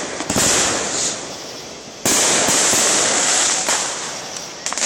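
Fireworks exploding: sharp bangs just after the start, a big burst about two seconds in that trails off in a long crackle, and more pops near the end.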